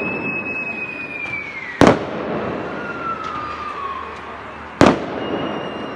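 Aerial fireworks bursting: two sharp loud bangs about three seconds apart, each preceded by a high whistle falling in pitch.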